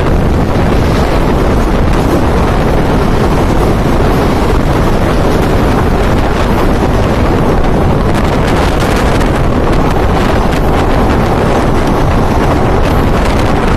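Loud, steady rush of wind buffeting the microphone at the open doorway of an express train running at about 105 km/h, with the noise of the moving train under it.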